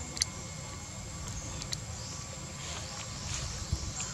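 Long-tailed macaque crunching green fruit: a few sharp clicks over a low steady rumble.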